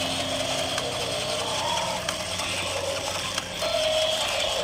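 Gear motor of a battery-powered walking toy velociraptor, clicking and ratcheting steadily as it walks.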